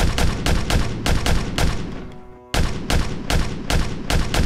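Paintball markers firing in rapid, irregular pops, about four or five a second, with a brief pause about two seconds in.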